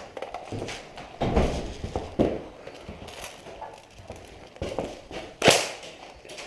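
A few dull thumps and knocks, with one sharp, louder knock about five and a half seconds in.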